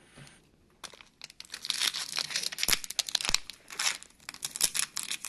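Crinkly trading-card pack wrapper being torn open and handled. It is a rapid, irregular crackling and rustling that starts about a second in.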